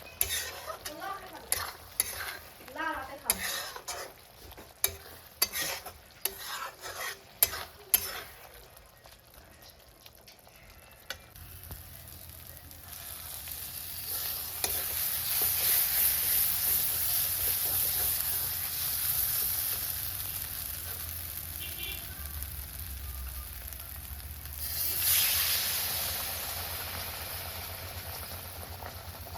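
A utensil clacking and scraping against a cooking pan in quick, irregular strokes for the first several seconds. Then a steady sizzle of food frying in hot oil builds up, swells suddenly about three quarters of the way through, and slowly fades.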